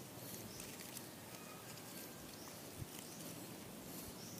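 Faint outdoor ambience: a steady soft hiss with faint, high bird chirps now and then, and a small tap about two-thirds of the way through.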